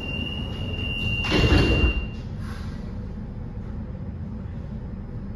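Sliding passenger doors of a CAF metro train closing, with a steady high tone sounding as they move; they shut with a loud thud about a second and a half in, and the tone stops just after. A steady low hum of the standing train carries on underneath.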